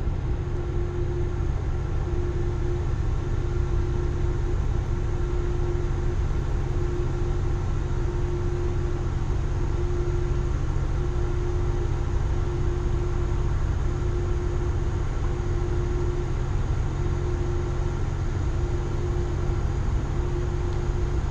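Low, steady engine drone with a constant hum, from a large cruise ship passing upriver.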